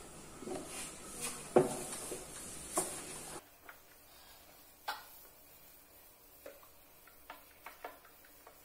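Faint rubbing of a folded wet wipe across a wooden kitchen shelf, with scattered light taps and knocks. The background hiss drops away suddenly a little over three seconds in.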